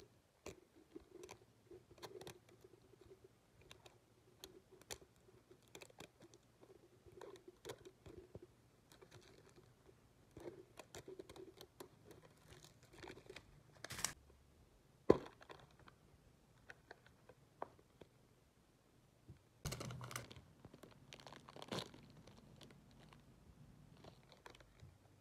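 Faint handling of a plastic blind-box capsule: small scratchy clicks and crinkles as its plastic seal is peeled off, one sharp click about midway, then crinkling of a thin plastic wrapper being pulled open near the end.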